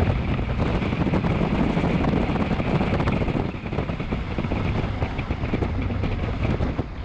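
Off-road vehicle driving on a desert sand track: engine running under rough tyre and body noise, with wind buffeting the microphone.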